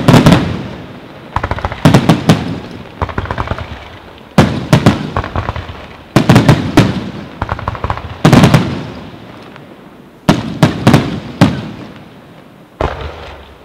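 Fireworks display: aerial shells bursting in volleys of loud, sharp bangs every one to two seconds, each volley trailing off in a rolling echo. The last volley, near the end, is weaker.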